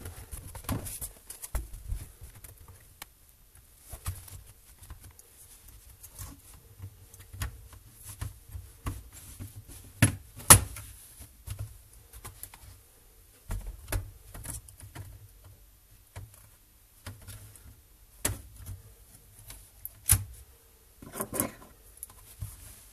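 Scattered clicks, taps and knocks of a laptop's plastic case being handled: the Acer Aspire V3-771G turned over and its keyboard top cover worked loose and lifted off, with sharp snaps about ten seconds in and again near the end.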